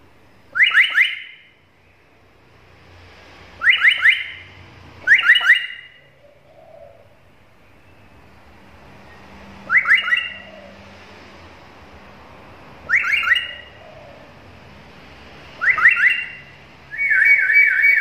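Black-capped lory (Lorius lory) giving loud, shrill calls, each a quick burst of two or three rising whistled notes, about seven calls a few seconds apart. The last call, near the end, is longer and more even.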